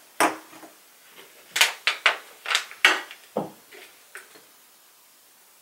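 Hard plastic clicks and knocks, about a dozen in quick succession, from a toy rocket and its clear plastic launch tube being handled and set down in a plastic bin. They stop about four and a half seconds in.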